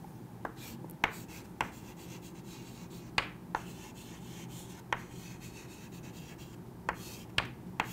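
Chalk writing on a chalkboard: irregular sharp taps as the chalk strikes the board, about nine in all, with faint scratching strokes between.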